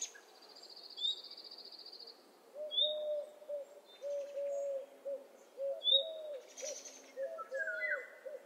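Morning birdsong: high chirps and a rapid trill near the start, then a long run of short, low hooting calls, about two or three a second, with more high chirps over them.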